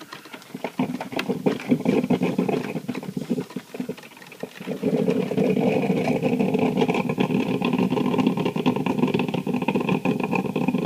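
Cuisinart drip coffee maker gurgling while it brews: scattered pops and spurts for the first few seconds, then a louder, steady bubbling from about five seconds in.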